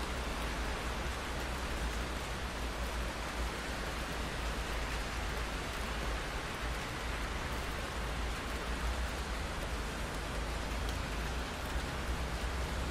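Steady rain falling on a window, an even hiss with a low rumble beneath it.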